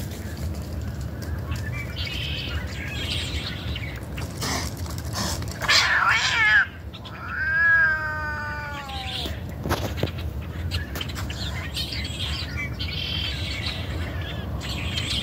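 A cat meowing twice, about six seconds in. The first call is short and the second is longer, with its pitch falling away at the end.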